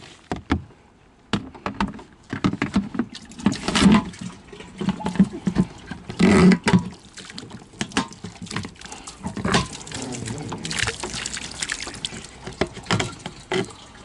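Irregular knocks and thumps from a plastic livewell tub on an aluminium rowboat, with some water splashing, as a freshly caught black bass is held in the tub and its lid is shut. The loudest thumps come about four and six and a half seconds in.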